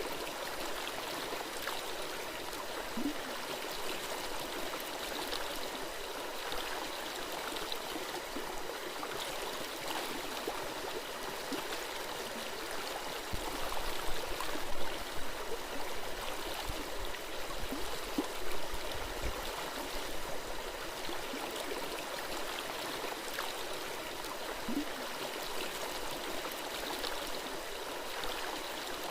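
A gentle stream flowing and gurgling steadily, with a few louder low thumps around the middle.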